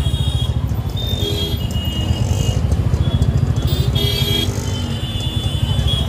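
A motorcycle engine runs with a steady low pulse through slow, dense street traffic. Brief held higher tones sound about a second in and again near four seconds.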